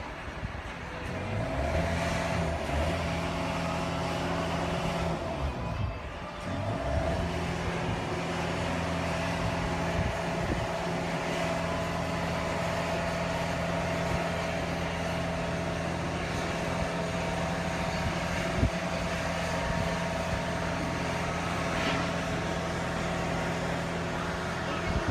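Cruise ship's machinery running with a steady low hum and a few held tones, setting in about a second in and dipping briefly around six seconds in.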